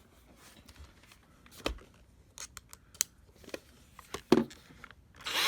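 Scattered sharp clicks and taps of a screwdriver and plastic vacuum cleaner housing being handled during disassembly, the sharpest about four seconds in, with a short scraping rustle near the end.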